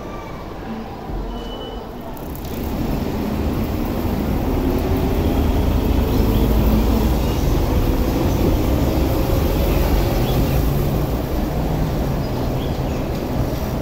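Peak Tram funicular car rumbling past on its rails, growing louder from about two seconds in, with a faint whine slowly rising in pitch.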